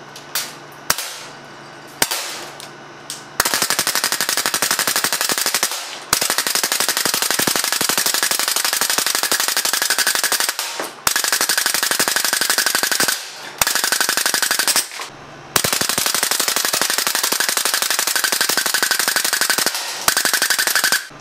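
A .177 BB air cannon's 24-volt solenoid valve fires about four single shots, then several long bursts of rapid full-auto fire with short pauses between them, the BBs hitting a target plate.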